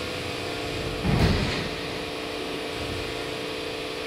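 Industrial plastics-processing machinery running with a steady, droning hum, and a brief loud burst of noise about a second in.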